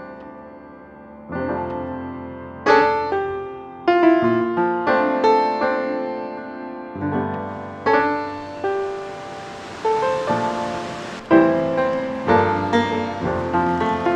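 Gentle solo piano music, single notes and chords struck and left to ring. About eight seconds in, a steady hiss of rushing stream water comes up beneath the piano.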